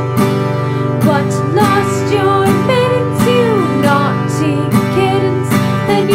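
A woman singing a nursery-rhyme melody over her own strummed acoustic guitar, in a steady strumming rhythm.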